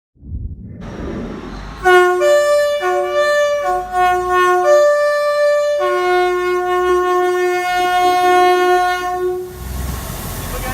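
Train horn with several notes sounding at once, giving a run of short blasts about two seconds in and then one long blast of about four seconds, over the rumble of the passing train.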